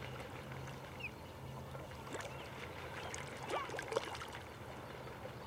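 Water splashing and trickling, with a cluster of sharper splashes about two to four seconds in, a few brief chirps and a steady low hum.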